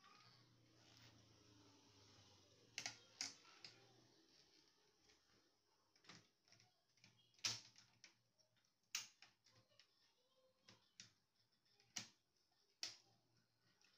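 Irregular sharp clicks and knocks of hard plastic and metal printer parts being handled during disassembly of a laser printer, spaced a second or more apart, with the loudest knock about halfway through.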